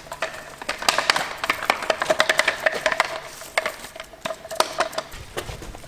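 Plastic cling film crackling and snapping in quick irregular clicks as it is pulled off the roll and wrapped tightly around a wet hoof cast, over a steady faint hum.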